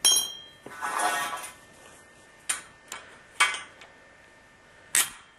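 Cut copper pipe and a tubing cutter clinking and knocking on a concrete floor. A sharp metallic clink rings briefly at the start, a rattling clatter follows about a second in, then a few single knocks, the loudest about three and a half and five seconds in.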